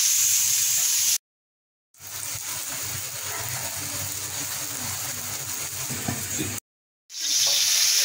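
Pointed gourd slices frying in hot oil in a pan, a steady sizzle. The sizzle cuts to silence twice for under a second each time, with a quieter, duller stretch between the cuts, and comes back loud near the end.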